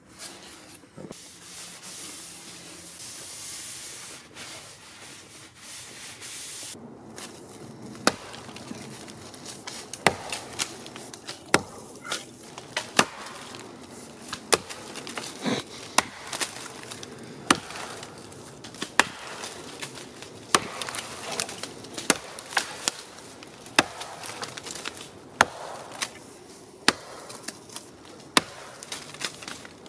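Broadaxe chopping into a birch log: sharp, regular blows about every second and a half, starting about eight seconds in after a few seconds of faint steady noise.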